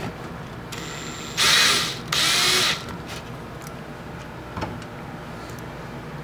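Power drill driving screws into a PC power supply's metal case: two short runs of the drill, each under a second, starting about a second and a half in, then a single click.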